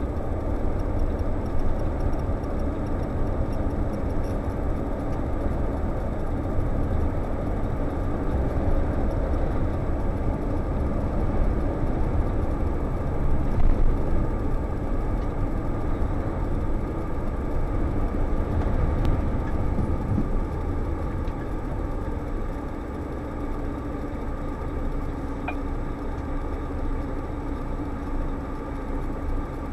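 Scania S520 V8 truck heard from inside the cab, a steady mix of engine and road noise while driving. Past the two-thirds mark it quietens as the truck slows into traffic, settling toward idle near the end.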